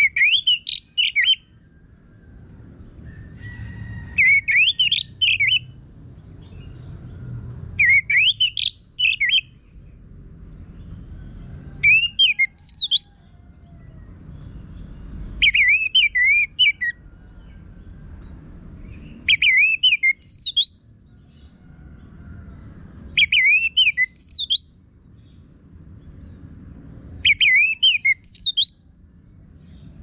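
Orange-headed thrush singing its harsh-voiced song: eight short phrases of quick, up-and-down swept whistled notes, about one every four seconds.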